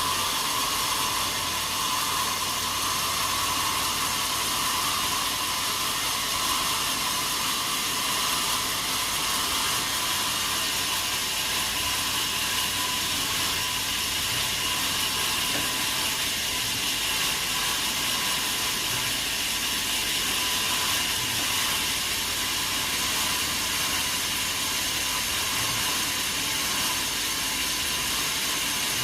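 Sawmill saw machinery running steadily: a constant hiss with a few high, unchanging whining tones, no rise or fall in level.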